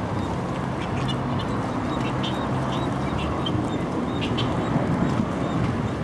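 Inboard engine of a boat running steadily as it motors slowly past, with seagulls giving several short calls over it.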